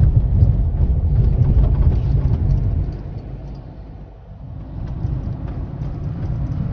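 Vehicle travelling along a road: a low engine and road rumble with light rattling, which drops quieter for about a second midway and then builds again.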